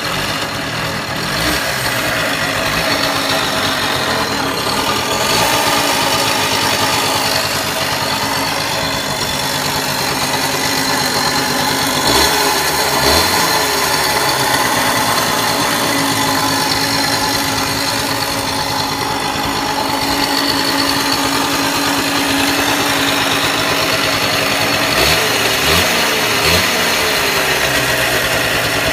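RV 50's small engine idling with a tinny, metallic sound whose cause the owner does not know. It is blipped briefly about twelve seconds in and revved a few more times near the end.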